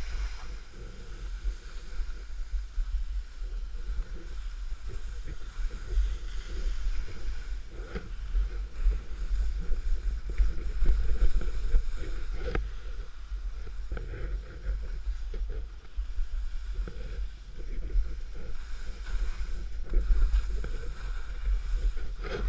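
Wind buffeting a skier's action-camera microphone while skiing downhill: a gusty low rumble. Skis hiss and scrape over soft, slushy snow.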